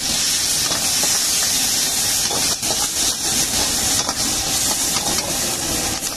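Steady, loud sizzling hiss of chopped green vegetables frying in hot oil in a wok, with a few scrapes and knocks of the metal ladle stirring against the wok.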